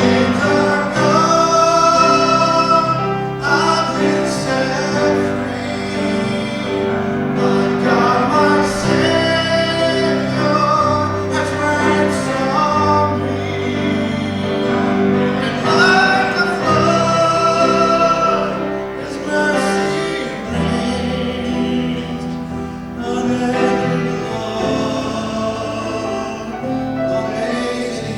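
A live worship song: singing over guitar accompaniment, with sustained sung phrases.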